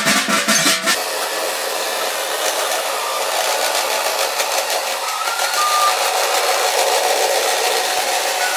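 Battery-powered toy jet plane's electronic sound effect: about a second of rapid rattling clatter, then a steady jet-engine hiss and whir, with short high beeps about five seconds in.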